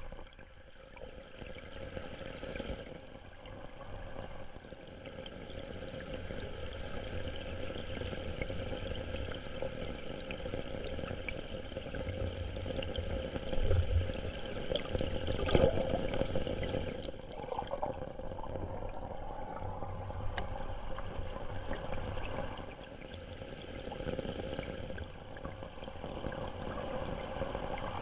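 Stream water rushing and gurgling as picked up by a submerged camera, with a couple of louder swells around the middle.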